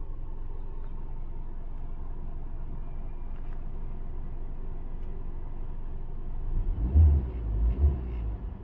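A Hyundai i20's 1.2-litre four-cylinder petrol engine idles steadily in park, then is revved twice in quick succession near the end, up to about 1900 rpm. The owner is showing an unsteady idle that dips to about 400 rpm after acceleration, a fault that began after the battery drained and was jump-started.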